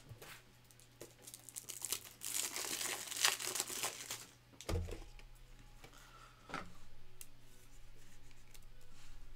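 Thin plastic crinkling and rustling for about two seconds, then a soft knock and a light click from handling a plastic trading-card holder.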